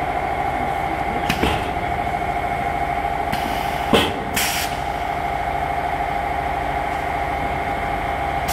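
Automatic liquid filter bag welding machine running with a steady hum, with a few sharp clicks and short hisses from its mechanism; the loudest click comes about four seconds in.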